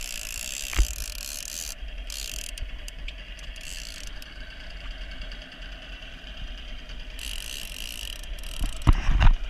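Fishing reel being cranked during a fight with a fish: a steady mechanical whirring and clicking that pauses now and then. There is a single knock about a second in and several loud knocks near the end.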